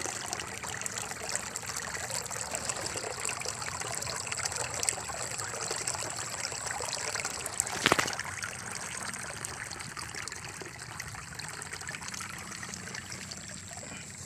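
Water trickling and running steadily, easing a little toward the end, with a thin steady high tone underneath. A single sharp knock comes about eight seconds in.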